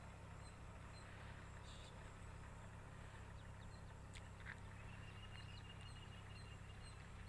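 Near silence: faint open-air background with a steady low rumble, a few faint high chirps, and a thin held whistle-like tone for about two seconds in the second half.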